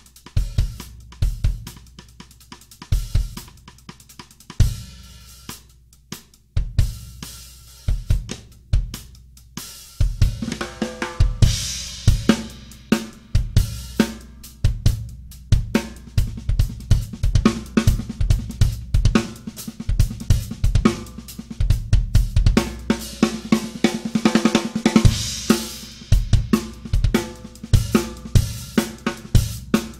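Drum kit played through a groove that shows off a Sonor Select Force 14x6.5 snare drum with custom wood hoops, backed by bass drum, hi-hat and cymbals. The playing is sparse at first and turns into a busier, denser groove about ten seconds in, with cymbal crashes.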